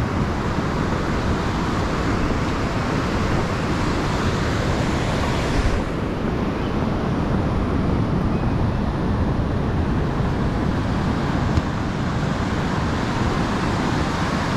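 Rough sea surging and breaking, a steady rushing noise, with wind buffeting the microphone.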